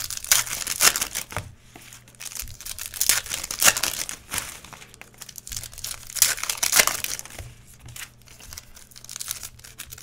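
Foil trading-card pack wrappers being torn open and crinkled by hand, in about four bursts of crackling.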